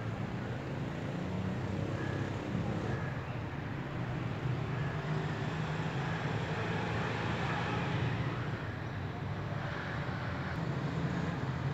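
Steady low outdoor background rumble with an even hiss over it, like distant road traffic; it holds level without clear breaks.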